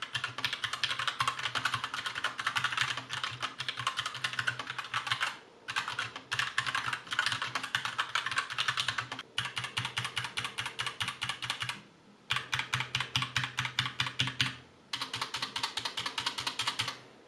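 Rapid typing on a KRUX Neo Pro 60% mechanical keyboard with Gateron Brown tactile switches, a fast steady clatter of keystrokes broken by several brief pauses.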